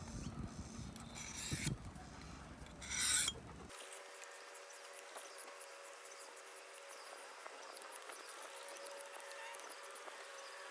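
Two rasping strokes of a knife blade drawn across a Work Sharp field sharpener, the second the louder. Then the sound cuts off abruptly to a faint steady hum with rapid high ticking.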